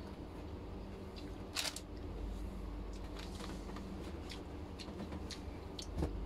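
Light clicks and rustles of dishes being handled on a plastic sheet as a glass bowl is set down, with a sharper knock about one and a half seconds in. A thump near the end as a tissue is pulled from its box, all over a low steady hum.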